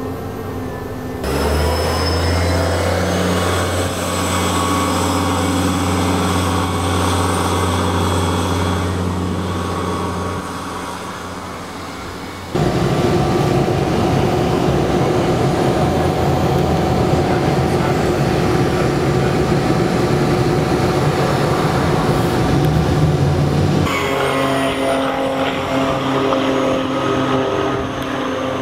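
Gasoline-electric series-hybrid ElDorado National EZ Rider II transit bus running, heard in several separate takes that change abruptly: first a steady low hum with engine tones, then from about 12 seconds in a louder bus passing close by with road and traffic noise, then near the end a bus driving away with steady engine and motor tones.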